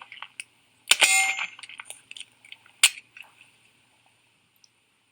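A sharp metallic clank about a second in that rings briefly, then a single sharp click near the three-second mark.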